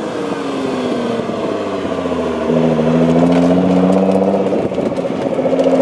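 Engine and exhaust of a tuned 750 whp Nissan GT-R, its 3.8-litre twin-turbo V6 running through a full aftermarket exhaust. The note falls gently, grows louder and holds steady from about halfway in as the car pulls away, then dips briefly near the end.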